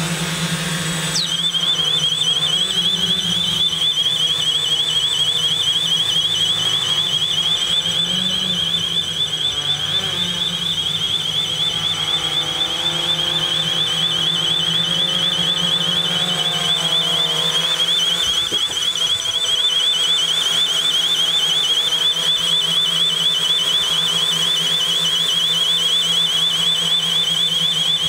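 Small electronic strobe alarm mounted under a quadcopter, used as a dog-deterrent siren, switching on about a second in and sounding a steady, rapid, high-pitched warble. Under it runs the steady hum of the hovering quadcopter's motors and propellers.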